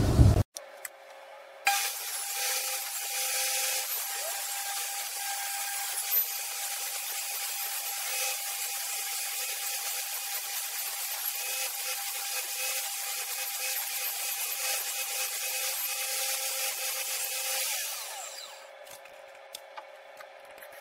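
Table saw running and cutting plywood as the blank is turned on a circle-cutting jig to saw out a round disc. A steady whine with the rasp of the cut, falling away about 18 seconds in and leaving a few light clicks.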